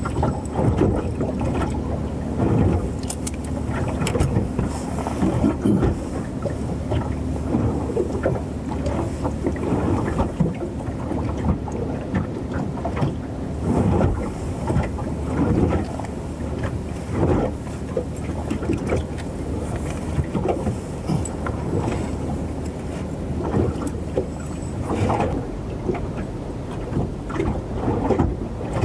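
Water slapping and lapping against the hull of a small moored boat in a swell, in irregular surges, with wind on the microphone. A low steady drone runs under it and fades out about a third of the way in.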